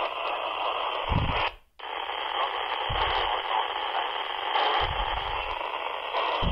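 Steady FM static hiss from a Quansheng UV-R50 handheld radio's speaker, tuned to a 70 cm repeater channel. The hiss cuts out for a moment about a second and a half in, then comes straight back.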